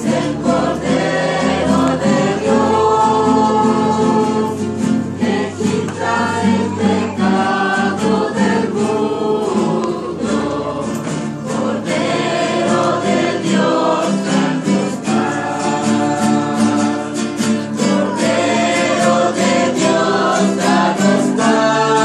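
A small church choir of men and women singing a hymn together, accompanied by strummed acoustic guitars.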